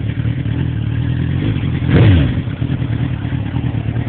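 2003 Suzuki GSX-R 750's inline-four engine idling through a full Arata aftermarket exhaust, with one quick rev blip about two seconds in that rises and falls in pitch.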